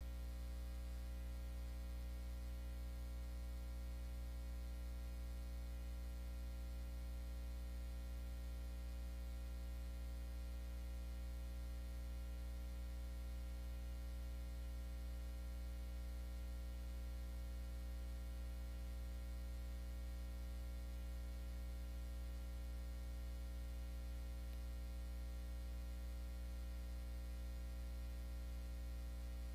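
Steady low electrical hum with a faint buzz of evenly spaced overtones above it, unchanging, with no music or voice.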